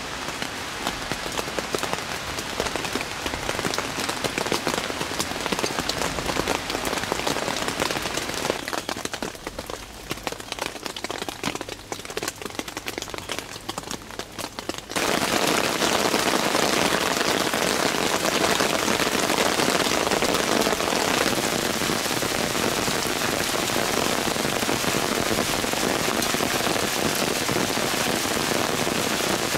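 Heavy rain pouring down, with many separate drop hits heard through the hiss. About halfway through it turns suddenly louder and denser.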